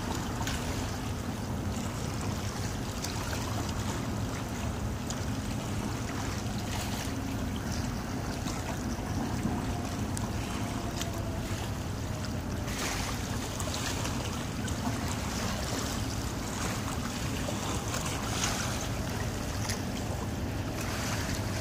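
Wind buffeting the microphone over small waves lapping, with a low steady drone underneath.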